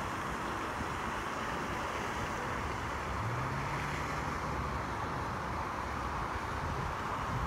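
Steady rushing outdoor background noise, with a faint low hum between about three and five seconds in.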